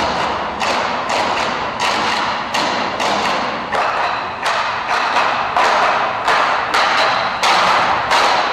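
Ensemble of large hide-headed stage drums struck together in a steady unison beat, about two strokes a second.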